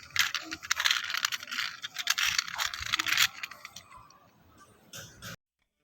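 Rapid clicking and rattling of small hard objects, dense for about three seconds, then thinning out and cutting off abruptly shortly before the end.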